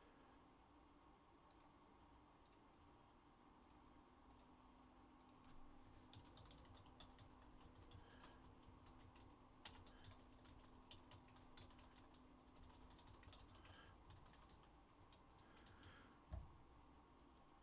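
Faint computer keyboard typing: scattered light key clicks. A single soft low thump comes near the end.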